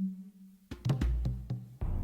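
Music with a held low note and sharp drum and percussion hits; a fuller, louder section comes in near the end.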